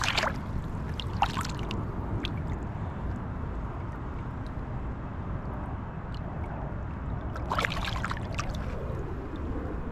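Shallow water splashing and sloshing as a released largemouth bass kicks away from the angler's hand. There is a splash right at the start, another about a second in, and a longer bout of sloshing at about seven and a half seconds, all over a steady low rumble.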